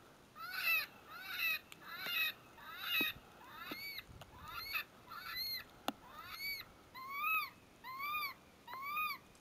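Electronic predator call playing a prey distress sound: about a dozen short cries in a steady series, roughly three every two seconds, each rising then falling in pitch.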